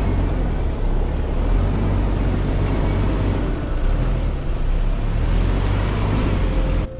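Vehicle driving: a steady low rumble of engine and road noise, which cuts off suddenly near the end.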